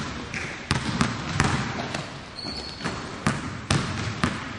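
Several basketballs bouncing on a gym floor at an irregular pace, with footsteps and a brief high squeak about two and a half seconds in.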